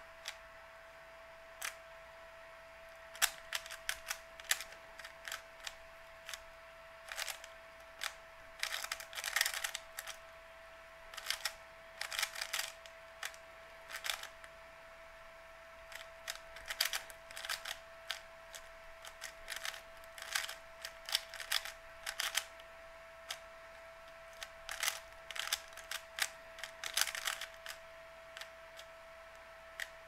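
A 3x3 puzzle cube being turned rapidly by hand: quick plastic clicks of its layers snapping round, in irregular flurries with short pauses, over a faint steady tone.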